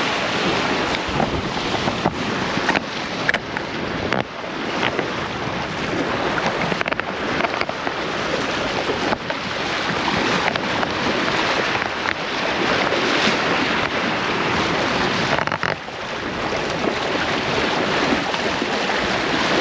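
Wind buffeting the microphone and water rushing along the hull of a sailboat under sail: a loud, steady rushing noise with a few faint knocks.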